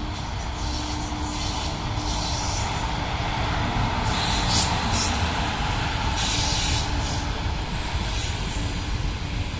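Electric locomotive-hauled train running along the track, a steady rumble of wheels on rails that grows louder toward the middle. Short bursts of high-pitched noise stand out about four and six seconds in.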